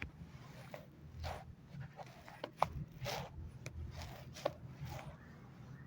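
Short, hard breaths from a person during a chiropractic adjustment, mixed with several sharp clicks and pops; the sharpest click comes about two and a half seconds in.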